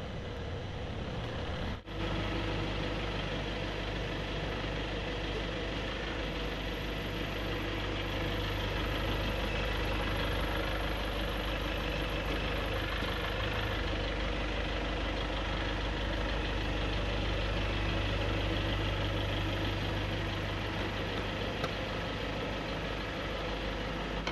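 Toyota 16-valve four-cylinder car engine idling steadily with its hood open.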